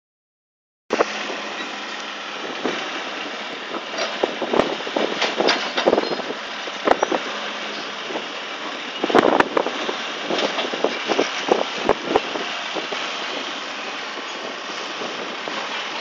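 Diesel engines of a crawler bulldozer and a tracked excavator running steadily, with a constant low hum and irregular clanks and knocks, thickest in the middle of the stretch.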